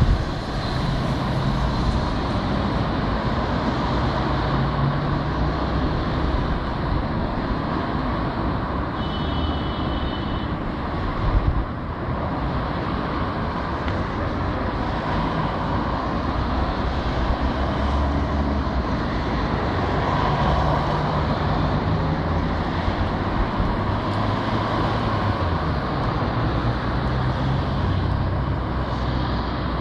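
Steady road traffic: cars driving through a junction, with engine rumble and tyre noise. A brief high-pitched tone sounds about nine seconds in, and a short louder knock about eleven and a half seconds in.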